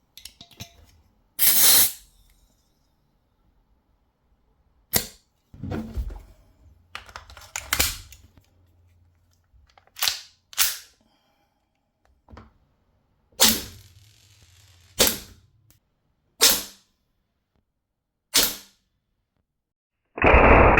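Cybergun Desert Eagle airsoft pistol, running on green gas, fired single shots: about ten sharp pops at irregular gaps, with fainter clicks between them.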